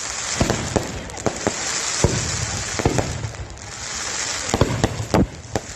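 Fireworks display: irregular sharp bangs of bursting shells, some in quick pairs, over a steady crackling hiss that swells and fades.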